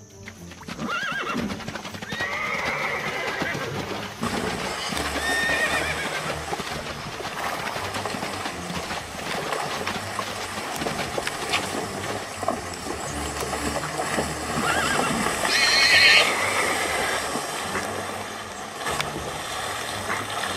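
Horses whinnying several times over the drumming and splashing of a herd galloping through shallow water. The loudest whinny comes about three-quarters of the way through.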